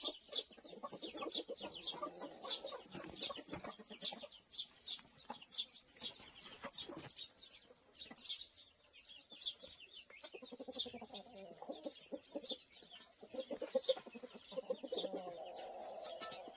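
Eurasian tree sparrow chirping over and over in short, high notes, several a second. A lower, pulsing call comes and goes beneath it.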